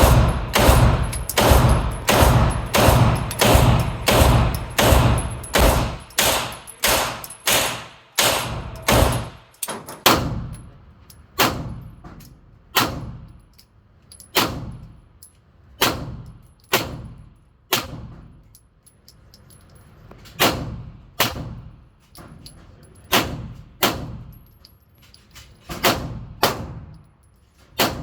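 Gunfire, shot after shot, each with a short echoing tail. For the first ten seconds or so the shots come about two a second. After that they thin out to a shot every second or two.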